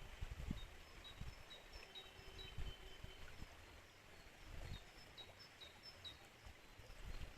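Faint flowing river water, with a small bird giving a quick series of short, high chirps and a few low thumps or rumbles.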